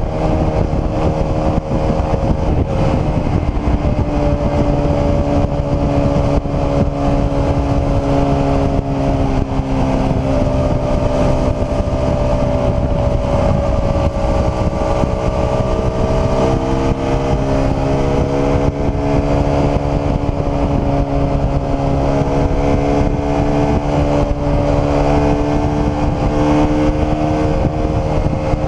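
Small sport motorcycle engine running steadily at highway cruising speed, with wind and road noise; its pitch sags a little about ten seconds in and slowly climbs again.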